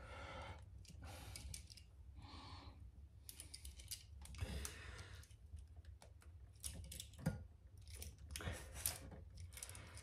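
Faint handling noise of electrical tape being pulled off the roll and wrapped around wires and WAGO 221 lever connectors, with scattered small clicks and rustles.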